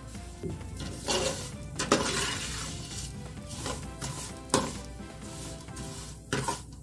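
Metal spoon stirring and scraping fideo noodles being browned in oil in an aluminium pot, with a light sizzle and a few sharp scrapes and clinks of the spoon against the pot.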